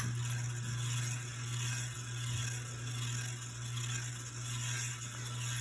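Hampton Bay San Marino ceiling fan motor humming steadily on medium speed, turning slower than it should, which the owner takes for a bad capacitor.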